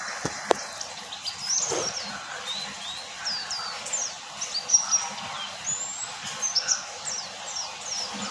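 A pet white-eye (pleci) calling in a run of short, high chirps that mostly sweep downward, starting about a second in and going on in quick succession. A single sharp click sounds about half a second in.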